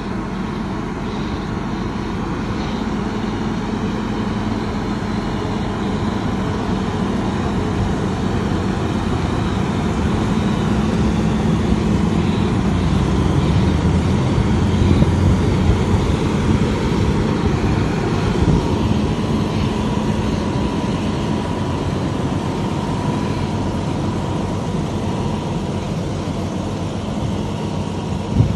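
Heavy diesel fire-apparatus engine running, a steady low rumble that grows louder to about halfway through and then eases off.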